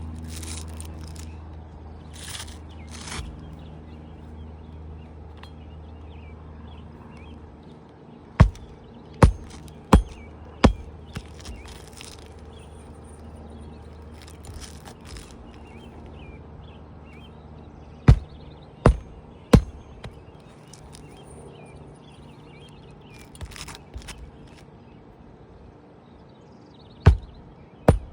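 Hammer nailing a replacement asphalt shingle under a lifted shingle: sharp, loud strikes in groups, four, then three, then two near the end. A low steady hum runs underneath and stops about eight seconds in.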